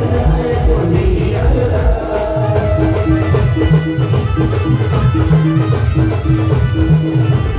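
Live Gujarati timli band music: electronic keyboard playing a short repeating note figure over heavy, steady drum beats.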